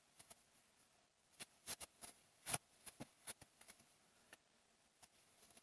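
Near silence with faint, irregular soft ticks and rustles of a crochet hook working yarn through double crochet stitches.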